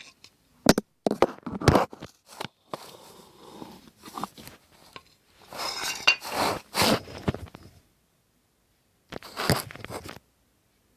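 Close handling sounds at the microphone: a run of sharp clicks, then longer crackling, crunchy rustles, stopping about a second before the end.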